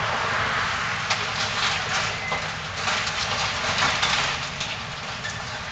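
Building demolition: debris crunching and clattering, with irregular knocks about a second apart over a steady noisy rush.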